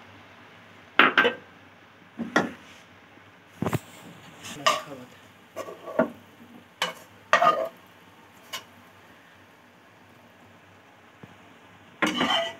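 Metal spoon clinking and scraping against a frying pan as scrambled egg is knocked out of it into a pot of fried rice: about eight sharp strikes over several seconds, then a longer scrape near the end.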